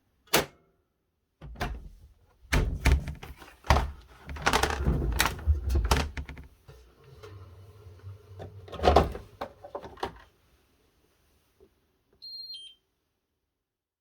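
Irregular clicks, knocks and thumps with a low rumble, like a washing machine door and drum being handled, then a short electronic beep that falls from a higher to a lower note, from the Miele W1 washer's controls.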